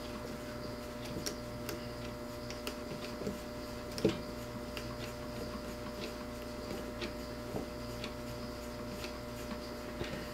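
Faint, irregular small ticks and rubs of thread being wrapped by hand around deer hair behind the head of a bucktail jig, over a steady low hum, with one slightly louder tick about four seconds in.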